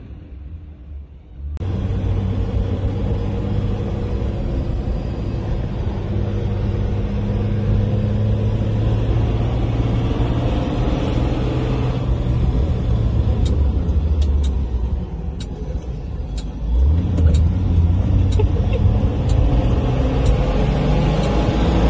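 Engine of a 1967 Ford F250, an inline-six (a 300 cubic inch, the owner believes), running under way, heard from inside the cab after a quieter first second and a half. The engine note dips briefly around sixteen seconds in and comes back louder, with a scatter of light clicks and rattles in the second half.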